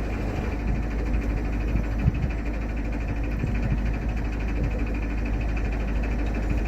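Narrowboat's diesel engine running steadily at cruising speed, a continuous low rumble with a fast, even pulse.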